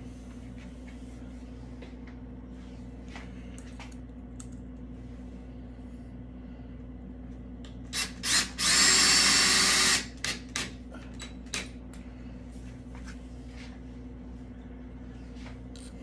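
Cordless drill driving a flathead wood screw through the hinge into the dowel-plugged screw hole: two short blips of the trigger about eight seconds in, then a run of about a second and a half, followed by a few light clicks.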